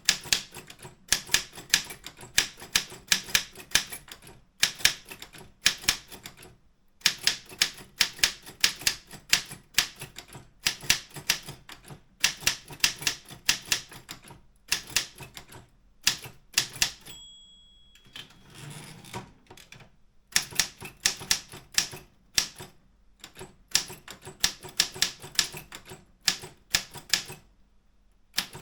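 Keys striking on an Optima M14 wide-carriage typewriter, in quick runs of clacks with short pauses. About two-thirds of the way through, a bell rings once, followed by a brief sliding rattle, before typing resumes.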